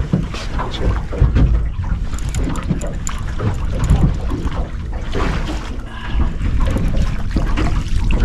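Wind buffeting the microphone, with water splashing and sloshing irregularly around a small fishing boat.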